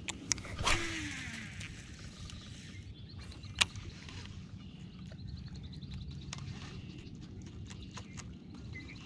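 A cast with a baitcasting rod and reel: a sharp swish with the spool's whir falling in pitch as line pays out, then a single sharp click a few seconds later. Light ticks and a steady low hum run underneath.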